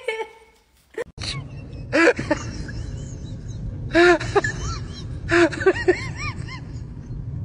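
A black dog barking in short, separate barks every second or two, over a steady low rumble.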